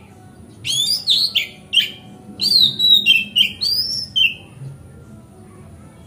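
Oriental magpie-robin (kacer) singing: two loud runs of clear whistled notes that slide up and down, starting about a second in and ending a little after four seconds, with one faint note just after.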